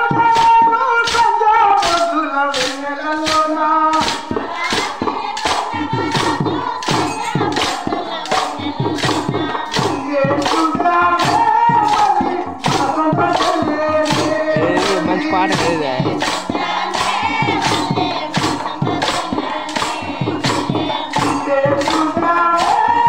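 Chekka bhajana: a devotional song sung over the even clacking of hand-held wooden clappers (chekkalu), struck together about twice a second to keep the beat for the circle dance.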